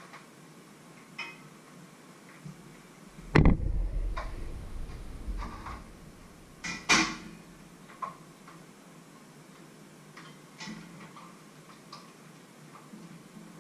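Kitchen handling noise: scattered clicks and knocks of utensils and cookware being moved. A loud knock about three seconds in rumbles off over a couple of seconds, and another sharp knock comes about seven seconds in.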